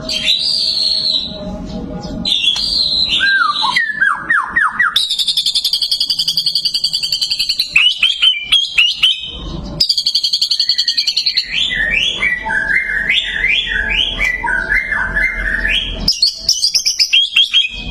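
White-rumped shama (murai batu) singing loudly and without pause: a varied song of long wavering whistles, quick runs of falling notes and rapid strings of sharp repeated notes.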